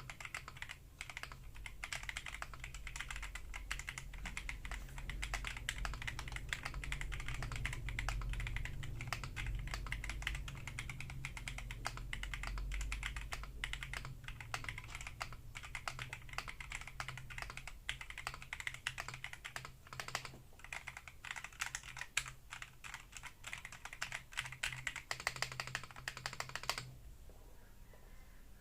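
Typing sound test on an Akko PC75B+ 75% mechanical keyboard: a steady run of fast keystroke clicks. It stops about a second and a half before the end.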